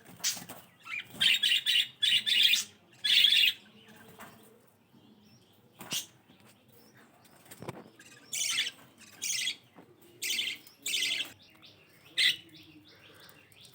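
Pet budgerigars chirping in short, high bursts: a cluster of calls in the first few seconds, then a quieter stretch, then another run of four or five chirps past the middle.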